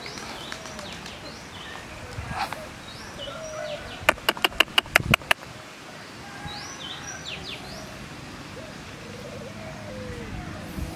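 Birds chirping in short falling notes, with a lower wavering cooing call near the end, typical of a dove. About four seconds in, a quick run of about eight sharp clicks, louder than the birds.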